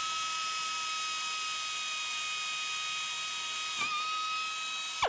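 Pneumatic drill running at a steady high-pitched whine, with a hiss of air, while the bit cuts through a carbon-fiber panel. The pitch dips briefly about four seconds in as the bit loads, and near the end the drill is released and its whine falls away.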